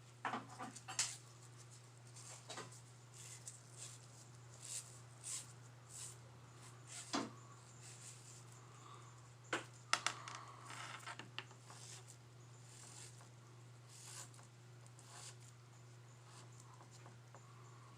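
Sporadic small clicks, taps and rustles as the greased inner speedometer cable of a 1972 Honda CB450 is fed and spun back into its housing, over a steady low hum.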